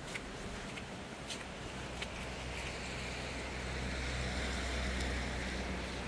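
A gust of wind builds for a few seconds and then eases, hissing through snow-covered trees and rumbling on the microphone. A few faint clicks come in the first two seconds.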